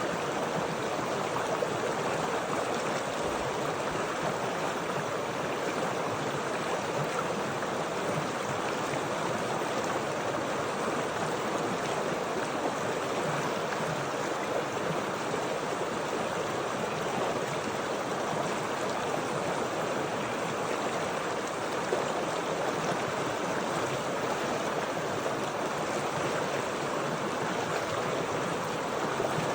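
Running water flowing steadily, an even, unbroken stream sound.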